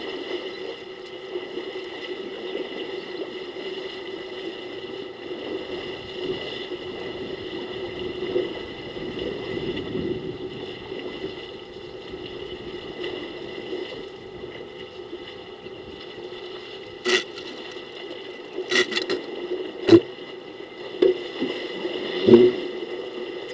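Water sloshing as elephants wade and a calf wallows at a waterhole, over a steady hum. Several sharp knocks come near the end, the loudest about three-quarters of the way through.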